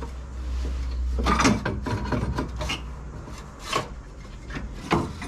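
Hand tools scraping and knocking against metal under a car: several separate rasping scrapes and clanks, with one of the sharpest near the end.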